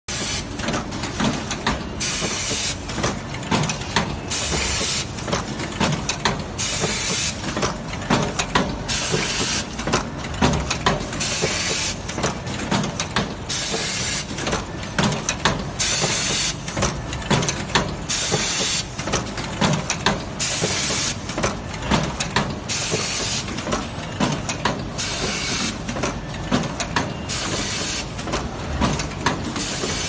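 Wire stripping and twisting machine cycling: its pneumatic cylinders let out short hisses of air every second or two over a constant rapid clicking and clacking of the mechanism.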